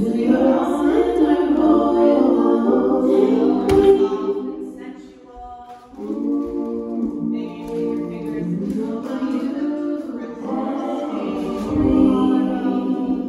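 Music of several voices singing together, choir-like and held on long notes, dipping briefly about five seconds in before carrying on.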